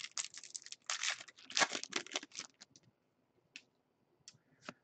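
Hockey card pack wrapper being torn open and crinkled: a rapid run of crackling for about two and a half seconds, then a few faint clicks as the cards are handled.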